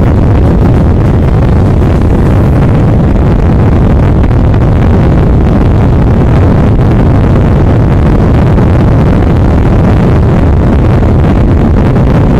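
Steady, loud wind rush on a helmet-mounted microphone at about 140–150 km/h, over a Yamaha R15M's 155 cc single-cylinder engine held flat out in sixth gear near its top speed.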